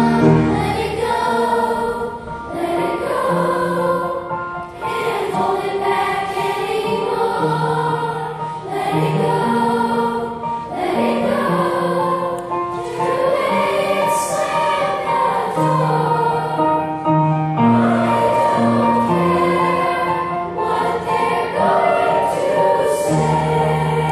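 Children's choir singing with piano accompaniment, the piano holding long low notes under the voices.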